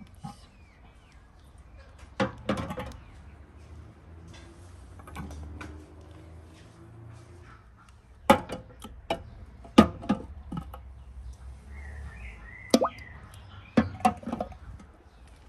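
Glass jars with metal lids clinking and knocking against one another and against the sides and bottom of a large aluminium pot as they are set in, one by one. The knocks are sharp and irregular: a few early on, then louder, closer ones from about eight seconds in.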